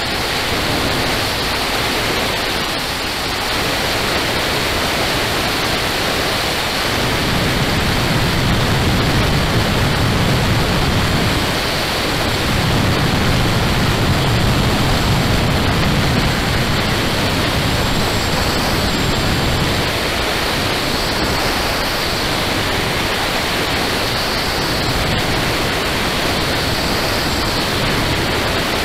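Steady rush of wind over the camera microphone on a motorcycle moving at road speed, with deeper rumbling swells coming and going; no engine note stands out.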